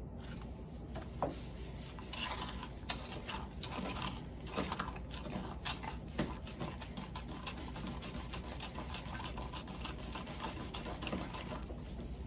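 Metal spoon stirring concrete mix with water in a plastic cup, scraping and clicking against the cup in quick, irregular strokes.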